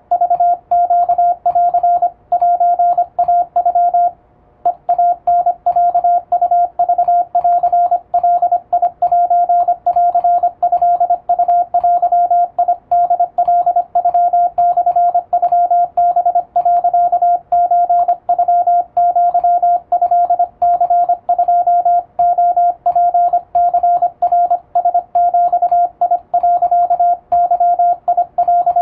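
Japanese Wabun Morse code sent in plain text with an electronic keyer: a single steady mid-pitched beep keyed on and off in quick, even dots and dashes. There is a brief pause about four seconds in.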